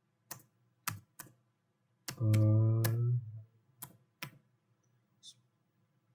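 Computer keyboard keys pressed one at a time, about seven separate clicks spaced out over several seconds, as a formula is typed slowly key by key.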